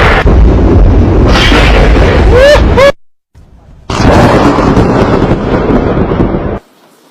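Thunder sound effects: a loud crash of thunder that cuts off abruptly about three seconds in, then after a second's pause a second loud thunder clap lasting about two and a half seconds that also stops abruptly.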